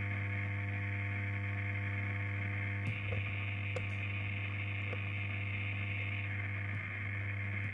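Steady electronic drone: a loud low hum with several held tones above it over a band of static-like hiss. The hiss grows brighter about three seconds in and settles back a little after six seconds, with a few faint clicks.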